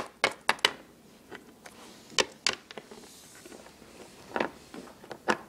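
Small plastic toy figurines tapped against a tabletop as they are hopped along, giving light, irregular clicks: a quick run of taps at the start, then a few scattered ones.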